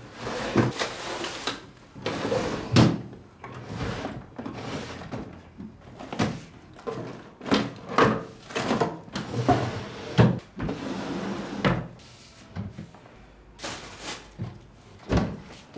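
Wooden dresser drawers and a cupboard being pulled open and pushed shut, with hands rummaging through the contents: a string of knocks, slides and rustles.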